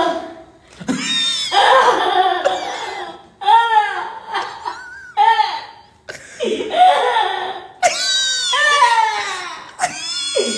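Men laughing loudly in repeated bursts of hearty laughter, with some shouting.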